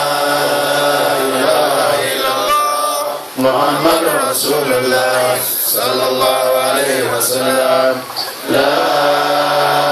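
A man chanting religious verses in long, drawn-out notes that waver and bend in pitch. There are short breaks for breath about three seconds in and again near eight seconds.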